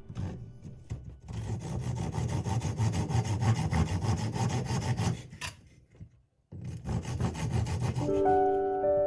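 A saw cutting through wood in quick, steady rasping strokes, breaking off briefly just past the middle and then starting again. Near the end, held musical notes come in over the sawing.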